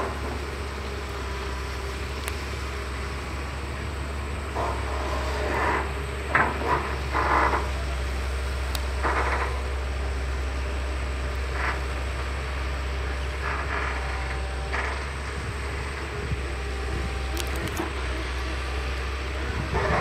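Caterpillar 320CL excavator's diesel engine running with a steady low hum, with a few short higher-pitched bursts from the working machine between about four and fifteen seconds in.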